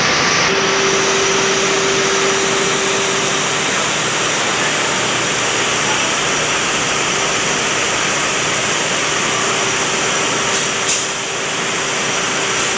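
Ship's main diesel engine running in its engine room: a loud, steady roar, with a hum that comes in about half a second in. A short click near the end.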